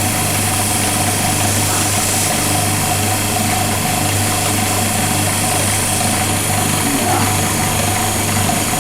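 Wood lathe motor running steadily with a constant hum while wax polish is applied to the spinning handle.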